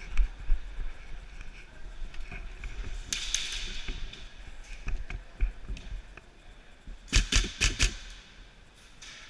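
Airsoft gun firing a quick string of about five sharp shots in under a second, near the end, over a low steady rumble.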